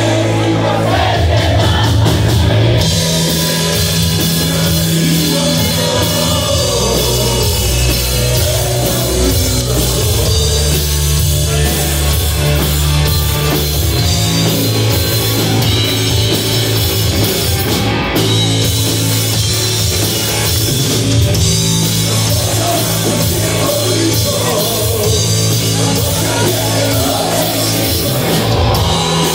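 Rock band playing live and loud: electric guitar, bass guitar and drum kit, with singing at times.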